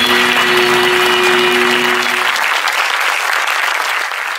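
Audience applauding, with a held chord of music under it that stops a little past halfway; the applause then carries on alone and begins to fade.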